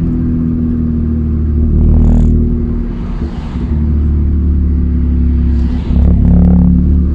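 Toyota Aygo engine and drivetrain droning inside the cabin while driving, a strong low hum with steady engine tones. The level dips briefly about three seconds in. A newly fitted solid gearbox mount passes a lot of engine vibration into the car.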